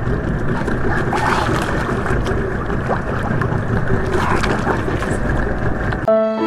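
Steady rush of wind on the microphone and water around a small outrigger boat at sea. Music with sustained string notes comes in near the end.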